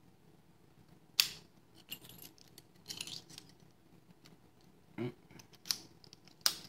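Metal padlock and keys being handled: a sharp click about a second in, short metallic jangles around two and three seconds in, and more clinks and a knock near the end.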